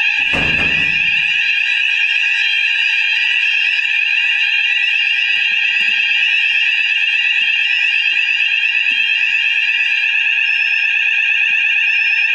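Fire alarm sounders of a newly installed fire alarm system going off in a test, a continuous electronic tone at several pitches at once. A dull thump sounds about half a second in.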